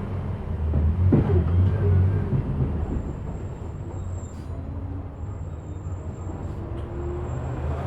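City bus travelling, heard from inside: steady engine and road rumble, with a brief sharp sound about a second in and a faint high whine in the middle.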